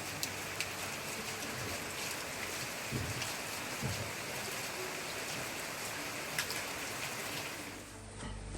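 Steady hiss of falling water, most likely rain, with a few faint light ticks.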